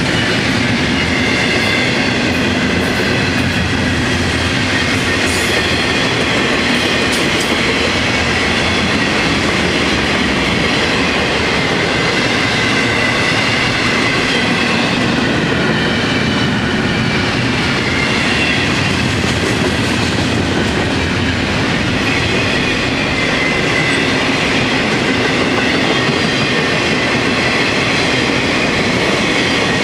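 A long freight train's cars rolling past close by: a steady, loud rumble of steel wheels on the rails, first from double-stack container well cars and then from autoracks.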